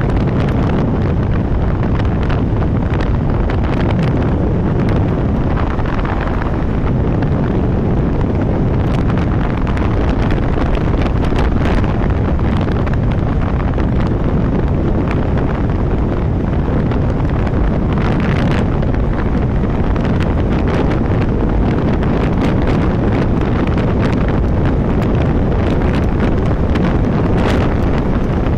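Loud, steady wind buffeting on the microphone from riding a Vespa VXL 125 scooter at full speed, about 80 to 95 km/h, with the scooter's running underneath it.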